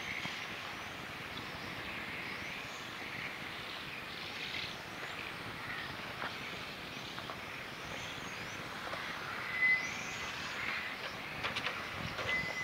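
Electric radio-controlled cars racing on an asphalt track: the whine of their motors rising and falling as they brake and accelerate through the corners, over a steady hiss of tyres. A short electronic beep sounds once about ten seconds in.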